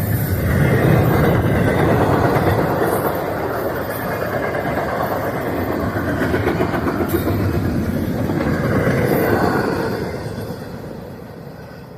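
Freight train cars rolling past on the rails with steady wheel noise, dying away over the last couple of seconds.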